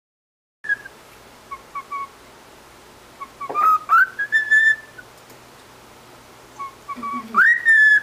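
A pet cockatiel whistling: a few short chirps, then a whistled phrase that rises to a held note about three and a half seconds in, and a second rising, held whistle near the end.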